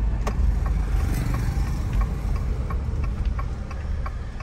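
Car engine and cabin rumble, steady and low, heard from inside the car, with a light regular ticking about twice a second.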